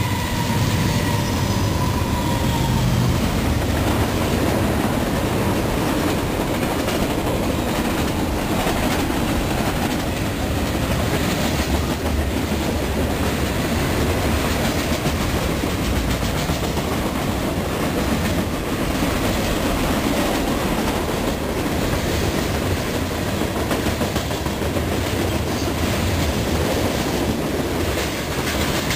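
Norfolk Southern freight train rolling past close by: a steady rumble of wheels on rail with clickety-clack as covered hoppers, boxcars and tank cars go by. The last note of the locomotive's horn dies away in the first couple of seconds.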